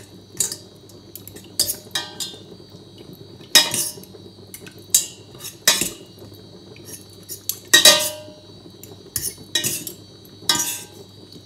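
Metal fork and spoon clinking and scraping against the inside of a stainless steel pot while cooked chicken breast is shredded in broth: irregular sharp clinks, each with a short ring.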